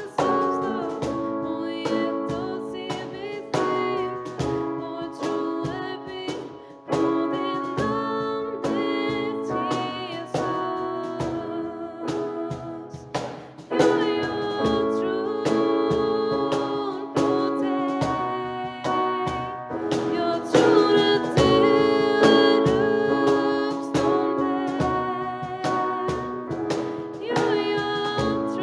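A woman singing a song, accompanied by a digital piano and a cajón played by hand, its strokes keeping a steady beat.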